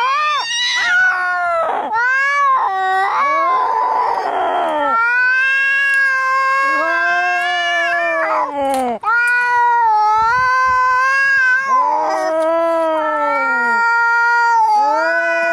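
Domestic cats yowling angrily, as in a cat fight: long, wavering, drawn-out yowls follow one another with hardly a pause, and there is a harsher, rougher cry about four seconds in.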